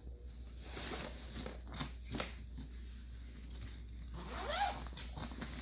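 Zipper on a Milwaukee fabric contractor tool bag being pulled open, a run of uneven zipping strokes.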